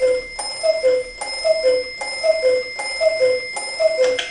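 German Black Forest cuckoo clock striking the hour: its two-note cuckoo call, high then low, repeats about six times, a little under a second apart. A bell keeps ringing behind it.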